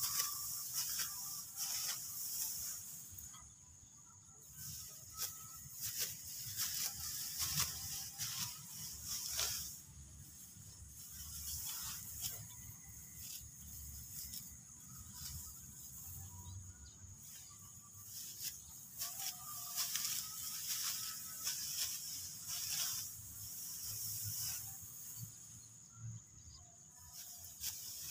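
Ripe rice stalks being cut by hand with a sickle and rustling as they are gathered: irregular crisp swishes and snaps over a steady high hiss.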